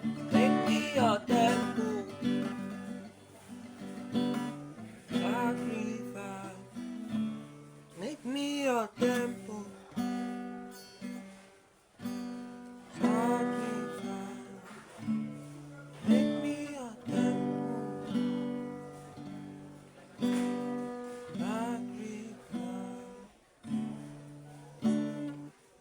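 Acoustic guitar strumming slow chords, each strum ringing out and fading before the next, every second or two.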